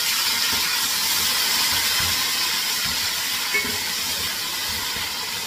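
Water hitting hot oil and fried onions in a metal pot: a loud steady hiss of steam and sizzling that slowly fades. The spatula scrapes and knocks softly against the pot as it is stirred.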